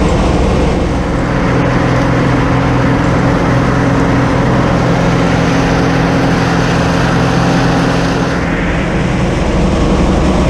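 A vehicle engine running steadily at constant speed, loud and close, with a hiss above it that eases off slightly about eight seconds in.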